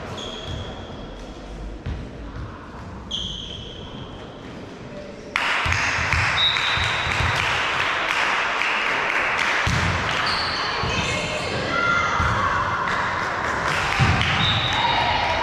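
Volleyball rally sounds in a sports hall: a ball thuding off hands and the floor, with voices echoing in the hall. About five seconds in, the background noise jumps abruptly louder and stays up.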